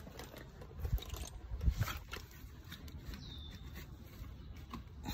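Handling noise from a phone carried against clothing: fabric rubbing and scraping on the microphone, with scattered clicks and knocks, a few louder ones in the first two seconds, over a low rumble.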